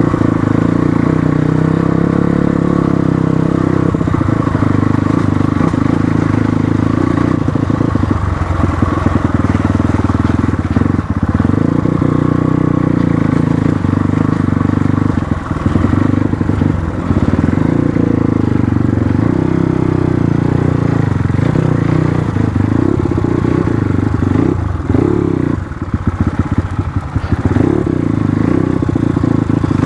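Motorcycle engine running steadily while riding along a rough dirt track, its note dipping briefly about halfway through and again near the end.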